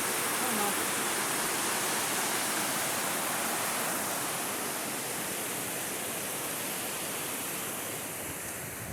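Rushing water of a creek or small waterfall: a steady hiss that eases off slightly near the end.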